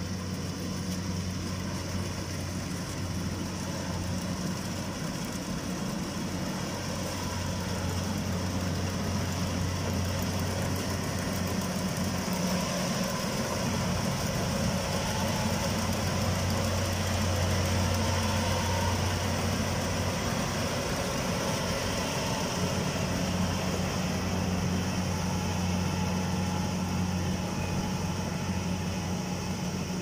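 Kubota combine harvester running steadily as it cuts standing rice, a continuous engine drone with a low hum. It grows louder toward the middle as the machine passes close, then eases off as it moves away.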